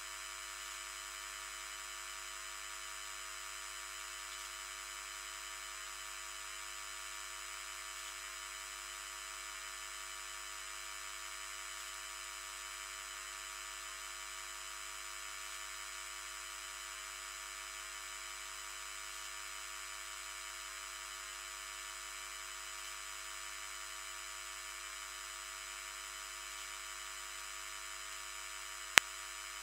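The 50 Hz mains grid voltage played as audio through a high-pass filter, heard as a steady, dense buzzing chord of its higher-order harmonics, mostly above 1 kHz. The harmonic noise comes from equipment connected to the grid. A single sharp click comes near the end.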